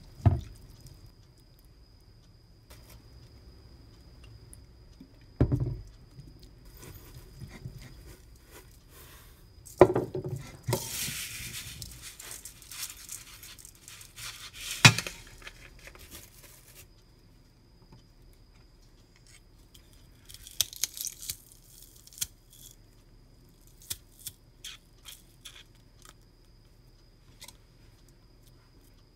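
Metal spoon knocking, clinking and scraping against a stainless steel mixing bowl as cockles are tossed with seasoning, with a few sharp knocks. Midway there are a few seconds of rattling hiss as sesame seeds are shaken in, and near the end a run of light clicks.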